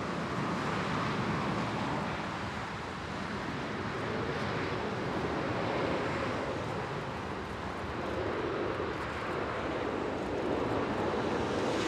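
Boeing 747-8 on final approach, its four GEnx jet engines running at approach power: a steady jet rumble and rush that slowly swells near the end as the aircraft draws closer.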